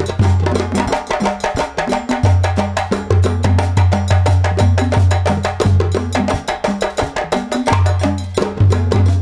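Loud music played through a large sound system being tested: fast, dense percussion with sharp, clicking strikes over long, heavy bass notes.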